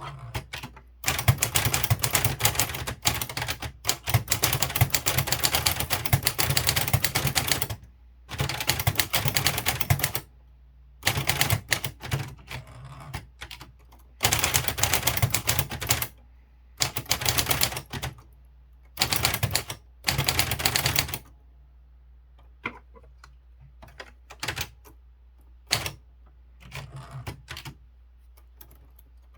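Kyungbang Clover Topstar 10S manual typewriter typing: rapid runs of sharp key strikes broken by short pauses, then sparser single strikes near the end.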